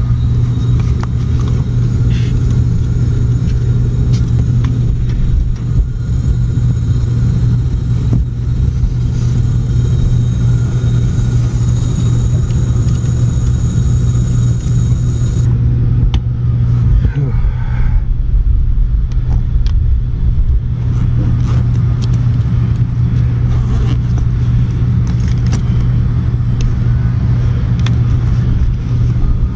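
Steady low mechanical hum and rumble, with a few faint clicks over it.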